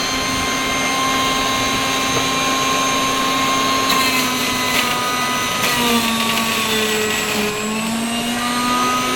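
Sujata juicer-mixer-grinder motor running with a steady high whine. About six seconds in, its pitch dips and shifts before settling again.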